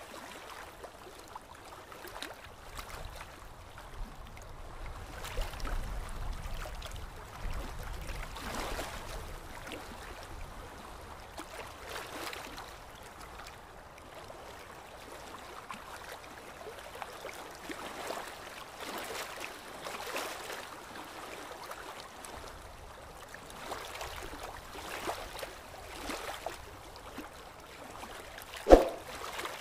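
Aquarium water trickling and bubbling steadily, with soft swells. A short, sharp knock comes about a second before the end.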